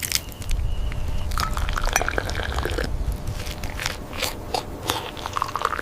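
Tea being poured into a cup, with small clinks and clicks of crockery and a rising tone near the end as the cup fills.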